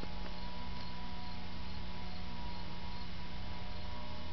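Steady hum and hiss with a few faint constant tones and no distinct events.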